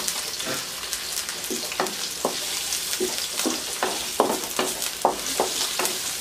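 Sliced onions sizzling in hot olive oil in a wok, with a wooden spatula stirring them and knocking against the pan in repeated short knocks at uneven intervals.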